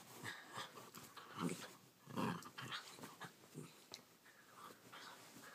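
Chiweenie growling in short, irregular bursts while tugging on a toy, the playful growl of a tug-of-war game.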